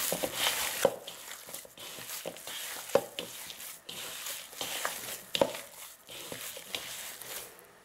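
Hands kneading moist, crumbly corn masa in a plastic bowl: irregular squishing and crumbling strokes, with a few sharp taps along the way.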